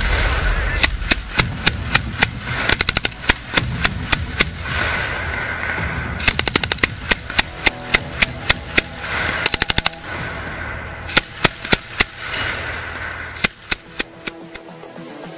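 Machine gun firing from an armoured vehicle: a steady string of shots about three a second, broken by several short, fast bursts. The shots thin out near the end.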